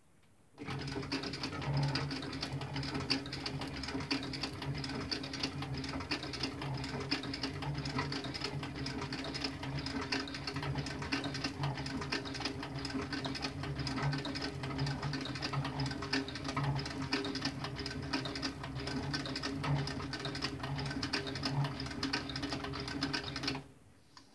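Cowboy CB3200 cylinder-arm, triple-feed industrial sewing machine running steadily as it stitches a thick studded dog collar: a steady motor hum under a rapid clatter of needle strokes. It starts about half a second in and stops just before the end.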